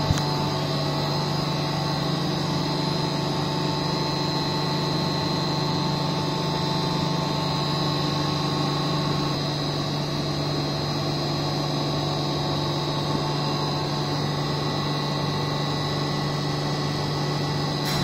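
Electric centrifugal water pumps of an HVAC plant running with a steady low hum, a thin high whine above it.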